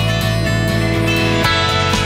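Background music of plucked acoustic guitar, with a chord change about one and a half seconds in.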